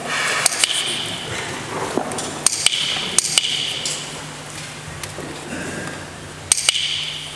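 Sharp metallic clicks with a brief ring, mostly in close pairs about a fifth of a second apart: a few near the start, two pairs about two and a half to three and a half seconds in, and another pair near the end. No music is playing.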